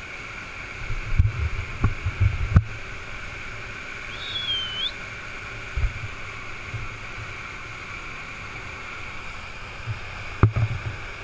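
Waterfall rushing steadily, with low thumps of wind or handling on the microphone around the second and near the end. A short high whistle-like call sounds about four seconds in.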